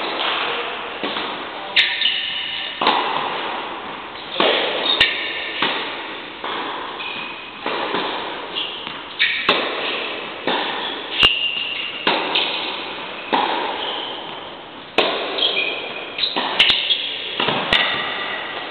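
Tennis balls struck by rackets and bouncing on an indoor court, a sharp hit about every second, each ringing on in the echo of a large hall, with short high-pitched squeaks among them.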